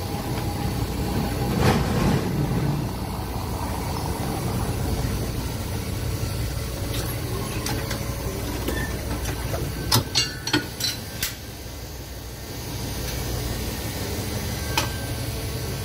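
Electric streetcar running slowly into its final stop, heard from inside the cab as a steady low rumble. A quick run of sharp clicks and knocks comes about ten seconds in.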